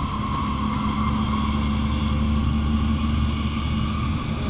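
Running noise inside a Hamburg S-Bahn electric train under way: a steady low rumble with a steady higher hum over it.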